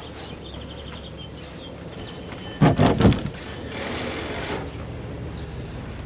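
Bimini top being handled on a boat: a short clatter of knocks about two and a half seconds in, then a rustle.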